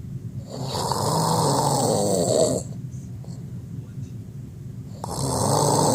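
A man snoring: one long snore starting about half a second in and lasting about two seconds, then a second snore beginning near the end.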